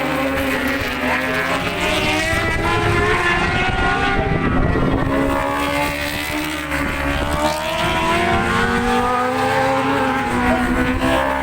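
Superbike racing motorcycles' engines running hard at racing speed, several engine notes overlapping, their pitch falling and then climbing again as the bikes brake, shift and accelerate.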